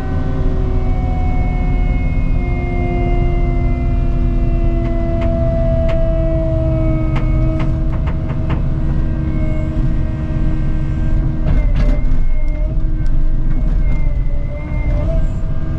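Cat 306 mini excavator working: its diesel engine runs steadily under load, with a hydraulic whine that slowly drops in pitch. A run of sharp knocks and cracks comes about halfway through.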